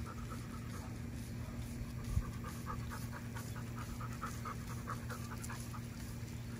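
A dog panting quickly and rhythmically, about three to four breaths a second, over a steady low hum.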